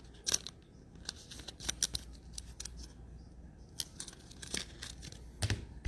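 Trading cards and their packaging being handled at close range: scattered short clicks, snips and light rustles.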